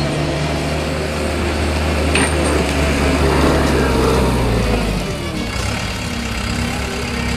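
Gehl 5640 skid steer loader's engine running as the machine travels carrying a heavy load in its bucket; the engine note shifts about five seconds in.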